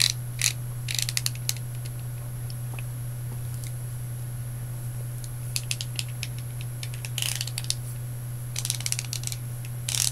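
Ratcheting clicks of a twist-up highlighter stick being turned over and over to release the highlighter, coming in several bursts with pauses between. A steady low hum runs underneath.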